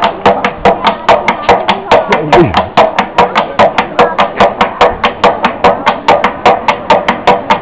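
Rapid, even knocking on a wooden barrel, about five strokes a second, as coopers hammer on the cask, with band music and voices behind.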